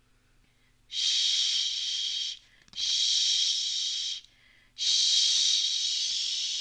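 Three long 'chhh' hisses made with the mouth, imitating a hand shower spraying water. Each lasts about a second and a half, with short pauses between.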